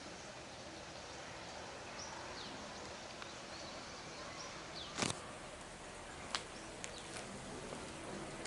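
Outdoor background noise with a few faint bird chirps. About halfway through come several sharp clicks, the first the loudest.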